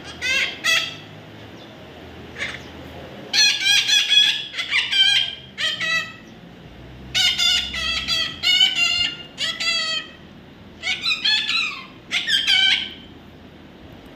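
Baby parrot calling, a series of rapid high calls that fall in pitch, coming in about five bursts with short pauses between them.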